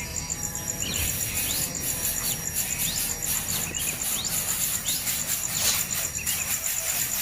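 Begging calls of nestling birds: short, sharp rising chirps repeating about every two-thirds of a second, the calls of chicks demanding food. Under them runs a steady, high pulsing insect trill.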